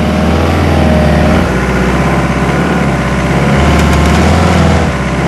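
Toyota pickup truck's engine running steadily, its note shifting a few times as the truck noses up against a wooden fence post.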